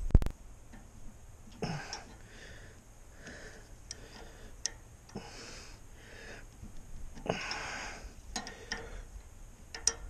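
Hand-tool work on the wood chipper's drive pulley: a sharp knock right at the start, then scattered irregular clicks and clinks of metal on metal as the pulley is tightened.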